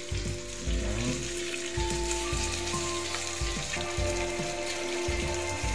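Chopped pork sisig sizzling in butter on a hot sizzling plate as it is spooned on, a steady hiss with repeated low bumps.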